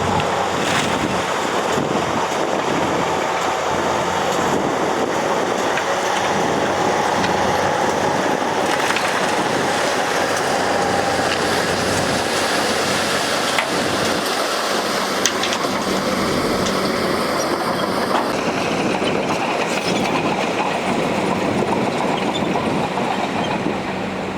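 Heavy earthmoving machinery working: a steady, loud mechanical clatter with a few sharp knocks.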